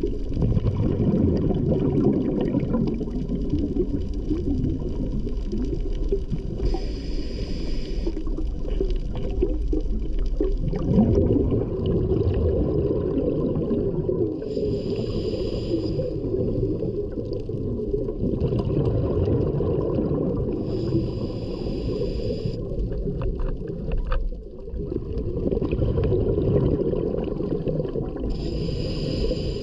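Muffled underwater sound as heard through a dive camera: a steady low rumble, with a burst of hissing scuba regulator breathing about every seven seconds.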